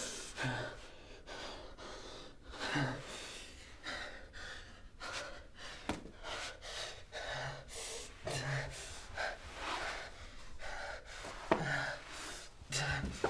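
A person breathing hard in ragged gasps, with a few short low grunts among the breaths.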